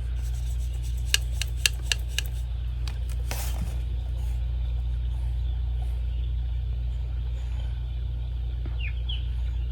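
A handful of light clicks and taps about a second in, from a small watercolour palette and brush being handled, over a steady low background hum.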